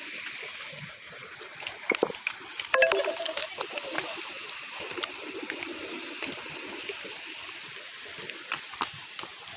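Water running and splashing, a steady hiss with scattered small splashes and clicks.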